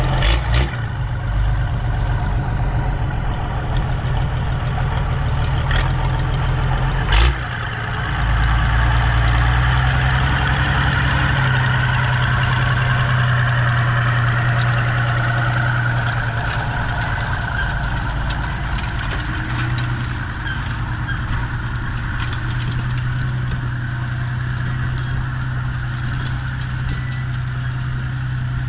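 Valmet 118 tractor's diesel engine running steadily through a straight exhaust pipe, with a sharp knock about seven seconds in, after which the engine note deepens and gets a little louder.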